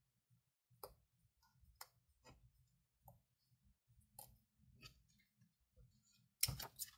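Faint, scattered clicks and taps of hand crafting work with paper and tools on a tabletop, with a louder quick cluster of clicks near the end.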